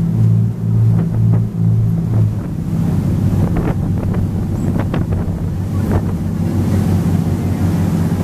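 Motor boat under way: the engine's low drone with water rushing and foaming along the hull, and wind buffeting the microphone. The drone pulses at first, about one and a half times a second, and evens out after about two seconds.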